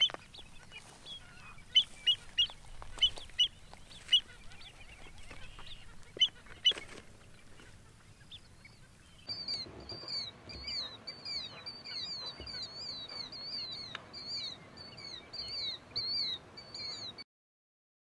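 American avocets calling: a rapid run of short, high, down-slurred calls, about three a second, starting about halfway and cutting off suddenly near the end. Before that, scattered short clicks and chirps.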